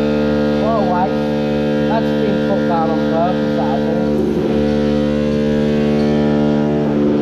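A loud, steady machine hum made of several pitched tones. Over it, during the first few seconds, a person's voice rises and falls in pitch without clear words.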